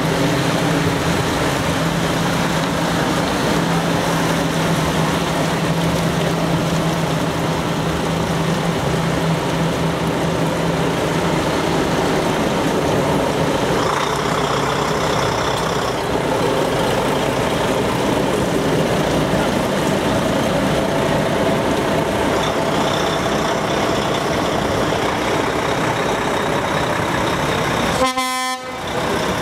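Diesel engines of heavy trucks running as they pull past slowly one after another, a steady drone throughout. Near the end an air horn gives a short toot.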